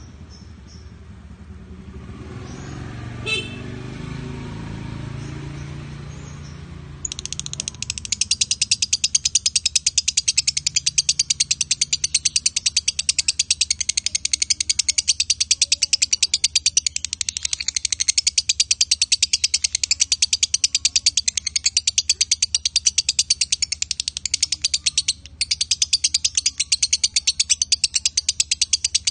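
A lovebird gives a long, very fast, continuous chatter that starts about seven seconds in and runs on with one brief break near the end. It is the sustained non-stop chatter that lovebird keepers call "konslet".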